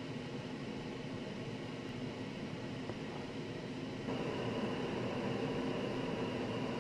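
Steady background hiss with a faint hum, like room or fan noise, getting a little louder about four seconds in.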